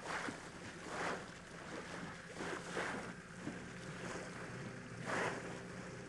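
Inflatable boat running over choppy sea: a steady low motor hum under the rush and slap of water against the hull, with several louder splashes as the bow hits the waves.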